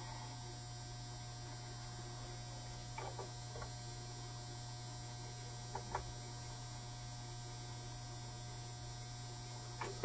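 Low, steady electrical mains hum, with a few faint taps as metal meter test probes touch the fuse clips of the disconnect.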